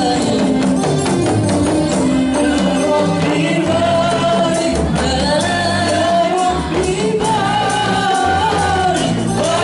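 Samroh music: voices singing a melody over rebana frame drums and jingling tambourine-like percussion.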